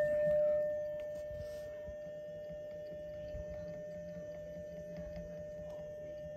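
Steady single-pitched CW tone from an Icom IC-706MKIIG transceiver sending a carrier so the ATAS-120A screwdriver antenna can be tuned on 40 metres. It gets fainter in the first second. Under it is a faint low hum from the antenna's motor moving it.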